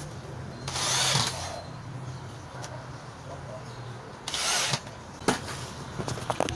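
Power drill driving screws into rubber tire sidings: two short runs, one about a second in and one near the middle, followed by a few sharp clicks near the end.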